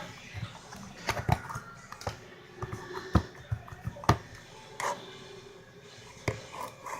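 Slime being squeezed and stretched by hand, giving irregular wet clicks and pops.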